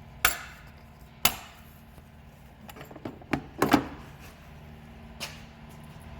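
Sharp knocks and clicks of hand tools or parts being handled during the repair. There are two single knocks about a second apart, then a quick cluster of louder knocks in the middle, and one more near the end.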